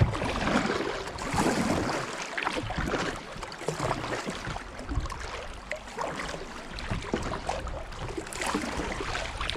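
Plastic kayak hull (Wilderness Systems Pungo) scraping and grinding over rocks and gravel in a shallow riffle, with water running past. The river is low enough for the hull to drag on the bottom.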